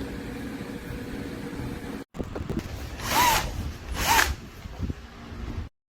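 Greenworks 24V cordless brushless power tool triggered twice in short bursts, its motor whirring up and winding back down each time, about a second apart.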